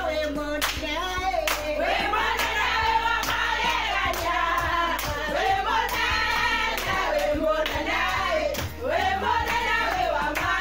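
Voices singing a praise song to steady hand-clapping in time, about two claps a second.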